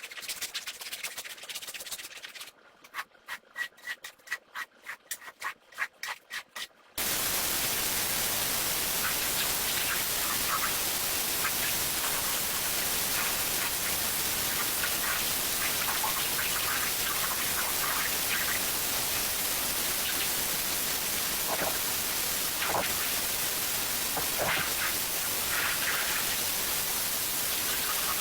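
Rug being scrubbed with a brush, first scratchy rubbing, then quick strokes at about three a second. About seven seconds in, a loud, steady hiss of spraying water cuts in suddenly, as the rug is rinsed.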